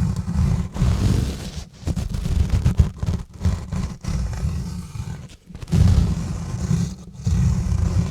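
Exfoliating gloves rubbing and scratching directly on a bare microphone: a heavy, uneven rumble of handling noise with a fainter scratchy hiss above it, broken by brief pauses between strokes.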